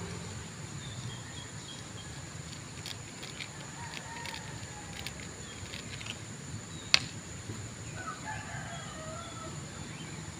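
A rooster crowing about eight seconds in, over a steady high-pitched whine, with a single sharp click just before it.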